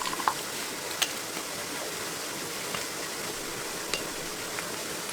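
A handful of sharp clicks and light metallic clinks from hand tools and parts being handled, over a steady background hiss; the loudest click comes about a second in.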